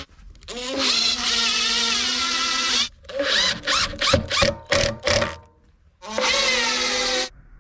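Makita 18-volt cordless impact driver driving screws into plywood: one long run of about two and a half seconds, then a string of short trigger bursts, then after a brief pause a final run of about a second.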